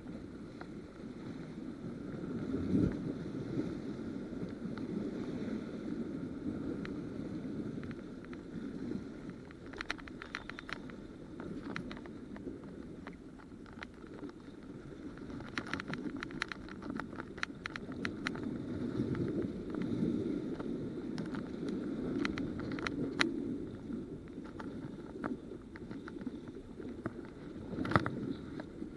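Sea water washing and sloshing against rocks, rising and falling, with wind on the microphone. Clusters of light clicks come about a third of the way in and again through the middle, and two louder knocks come, one near the start and one near the end.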